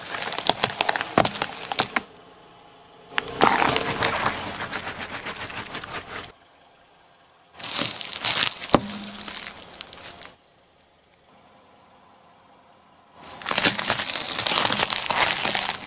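A car tyre rolling over objects and crushing them, in four separate bursts of crunching and crackling with sharp cracks, quiet in between. Among the things crushed are a watermelon, candy sticks in plastic wrappers and garlic bulbs.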